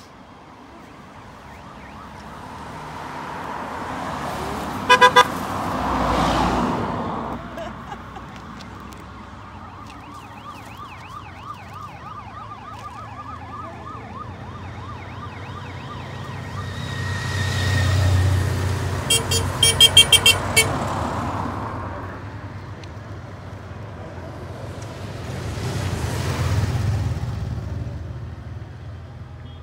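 A car and police motorcycles passing by one after another, each swelling and fading. A warbling siren sounds in the middle, and there are quick bursts of short horn beeps: two about five seconds in and a rapid series a little before the second pass peaks.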